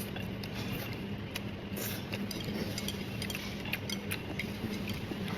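Eating utensils clicking and clinking lightly against dishes, scattered irregularly, over a steady low hum.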